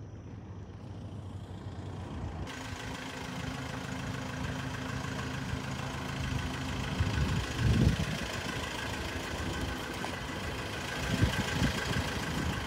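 Pickup truck engine idling steadily; it grows louder about two seconds in, with a few brief low rumbles around the middle and near the end.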